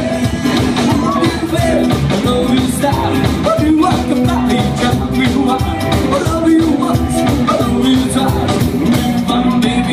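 A rockabilly band playing live: Gretsch electric guitar, upright double bass and drum kit playing together at a steady dance tempo.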